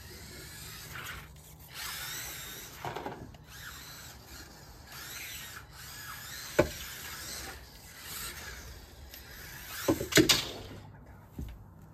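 Losi Micro-B micro RC buggy's small electric motor whining, rising and falling in pitch with the throttle as it slides about on a dew-wet wooden deck. A sharp knock comes about six and a half seconds in, and a louder clatter around ten seconds as the buggy hits the small wooden ramp.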